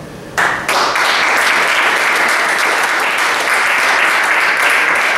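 Audience applause for a finished poem, breaking out suddenly less than half a second in and continuing steadily as dense, close-packed clapping.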